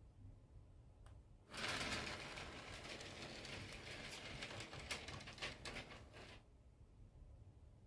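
HO scale model train running past, its wheels clicking and clattering on the track for about five seconds, starting about a second and a half in and stopping fairly suddenly near the end.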